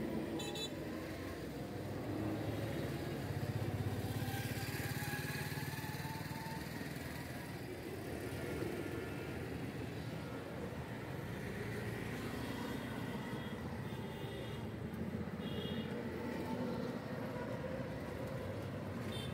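Street traffic: motor vehicles such as auto-rickshaws and motorcycles running and passing, as a steady rumble. One passes louder about four seconds in. A few short high beeps come around the middle.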